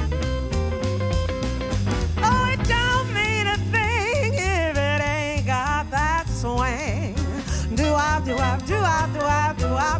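Jazz band playing a swing tune over a steady bass pulse and drums. From about two seconds in, a solo melody line with a wide vibrato rises and falls over the band.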